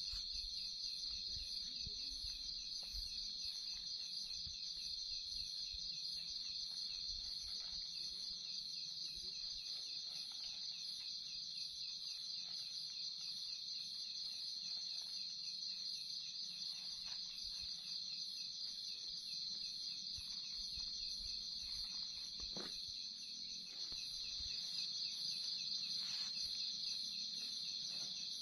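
A steady, high-pitched chorus of night insects trilling, with a faster pulsing layer above it. Faint rustles and a soft knock come from camping gear being handled.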